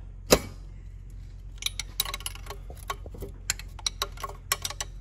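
A 17 mm wrench clicking and clinking against a turbo coolant line fitting as it is turned loose: one sharp click just after the start, then a run of irregular light clicks.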